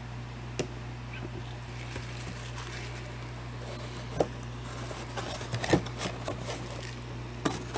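Scattered light taps and clicks of small plastic toiletry containers being handled and set down, a cluster of them about five seconds in, over a steady low electrical hum.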